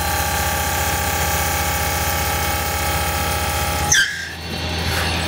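Mitsubishi 16 mm four-flute end mill, driven by a live-tool head, side-milling 4140 steel: a steady machining whine with a low hum under it. About four seconds in there is a short squeal, then a brief dip before the cut sound resumes.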